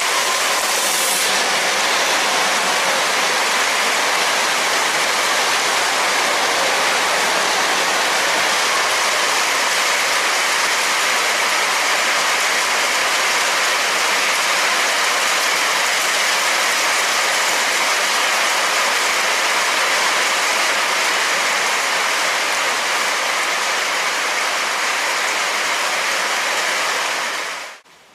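Heavy rain falling steadily on a station platform and its roof, a loud, dense, even hiss that cuts off abruptly near the end.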